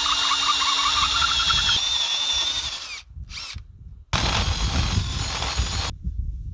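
Cordless drill boring a hole into a wooden corner post: the motor runs for about three seconds, stops for about a second, then runs again for nearly two seconds before stopping.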